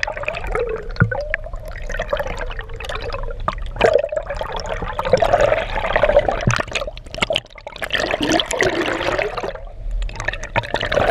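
Sea water churning and gurgling around a camera held at the waterline, heard muffled through its waterproof housing, with wavering gurgles and frequent small splashes.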